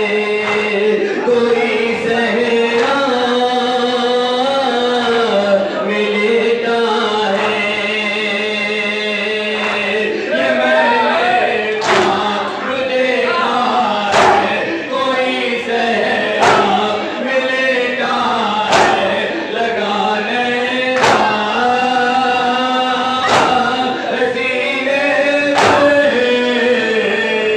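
Male voices chanting a nauha, a Shia lament, in unison through a microphone, with others joining in. From about twelve seconds in, sharp slaps land about every two seconds: mourners striking their chests in time with the chant (matam).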